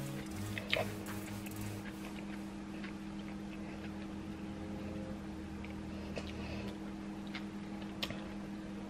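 A metal fork picking at baked fish in an aluminium-foil packet while eating, with a few sharp clicks, the loudest near the start and near the end. Underneath runs a steady low hum.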